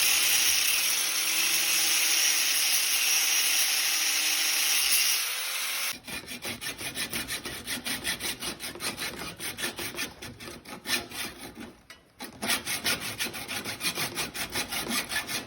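A power tool runs steadily for about six seconds and cuts off. Then come fast, even rasping strokes, about four a second, of hand work on the handlebar.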